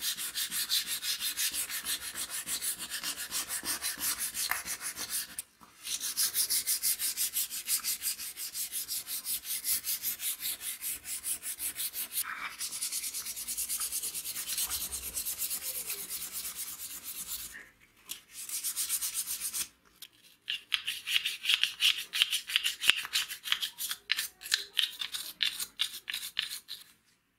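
Sandpaper rubbed by hand over a small metal scale part in quick back-and-forth strokes, a hissy scrubbing. It stops briefly a few times, and the strokes near the end are louder and choppier.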